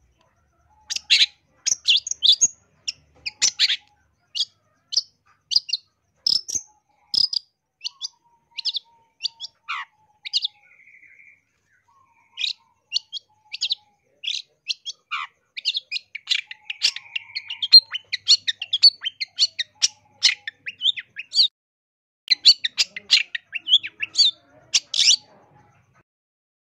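Long-tailed shrike (cendet) singing a rapid, varied string of short, sharp chirps, with a brief lull about ten seconds in. The song is a 'full isian' song, packed with mimicked calls of other birds.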